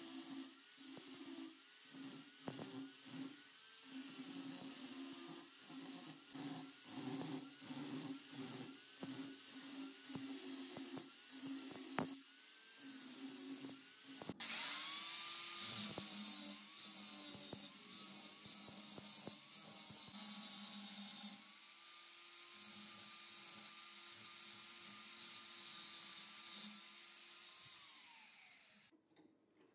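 Angle grinder with an abrasive disc grinding a steel hammer head: a high motor whine and grinding hiss that dip over and over as the disc is worked across the metal, the pitch sagging and recovering with the load. About halfway through it turns louder and steadier, and it stops shortly before the end.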